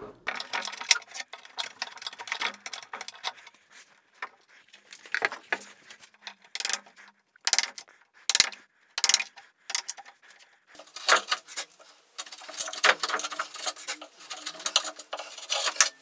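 Bench chisel paring wood out of a saw-scored rabbet along a board's edge: a run of short scraping and clicking strokes, sparse at first and coming thick and fast in the last few seconds.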